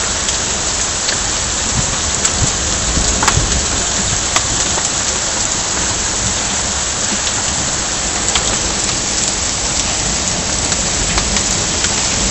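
Heavy downpour: torrential rain pouring steadily onto a flooded street, an even hiss with occasional sharp ticks of drops.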